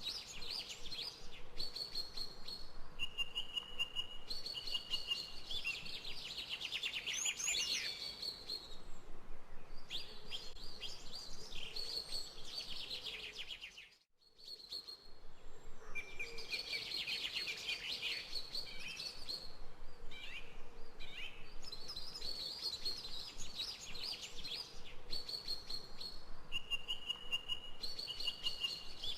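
Several birds chirping and singing, with held whistled notes and fast trills, over a faint steady background hiss. The sound dips away briefly about halfway through, then returns.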